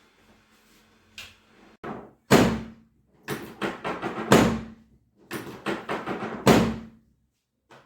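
A run of thuds and knocks, each with a short ring-out, starting about a second in. The three loudest come about two seconds apart, with smaller knocks between them.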